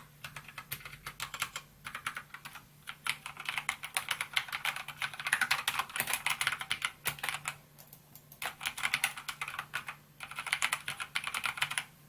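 Typing on a SKYDIGITAL NKEY-R3 mechanical keyboard with PBT keycaps: quick runs of key clicks broken by short pauses, a longer pause a little past the middle.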